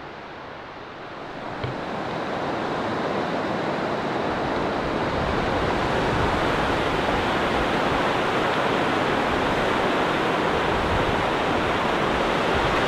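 Fast-flowing river rushing over rapids and a log jam. It grows louder over the first few seconds, then holds steady.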